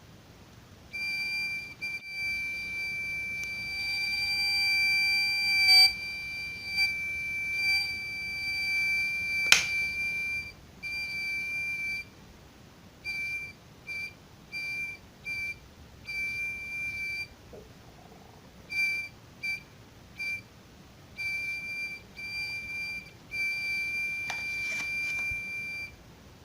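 12-volt buzzer of a homemade LDR and IRFZ44N MOSFET fire alarm sounding a steady high-pitched tone for about ten seconds, then cutting on and off in irregular beeps of varying length as the sensor is triggered and released. A sharp click comes about halfway through the steady tone.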